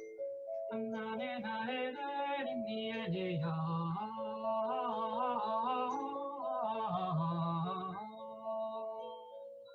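A woman's wordless intuitive singing: wavering, gliding vocal lines with some long held tones, fading out near the end.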